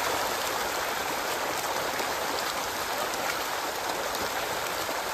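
Hundreds of farmed pond fish thrashing and splashing at the water's surface in a feeding frenzy on thrown feed: a steady, dense splashing.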